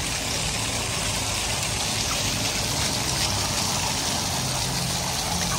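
Many small jets of a ground-level plaza fountain spraying and splashing onto wet paving: a steady hiss, with a low steady hum underneath.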